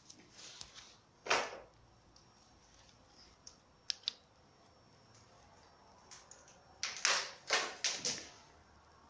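Footsteps scuffing and crunching on a rubble-strewn floor: one step about a second in, two sharp clicks near the middle, then a run of three or four quick crunches near the end.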